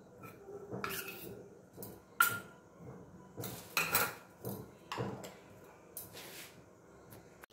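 Stainless-steel kitchenware clinking and scraping: a small steel bowl and utensil knocking against a large steel mixing bowl as paste is added, in several separate sharp clinks. The loudest comes about two seconds in and rings briefly.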